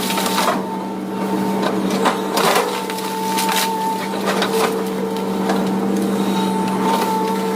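Excavator's diesel engine and hydraulics running steadily with a constant hum and a whining tone, broken by several sharp knocks and cracks as the machine works timber and debris while stacking.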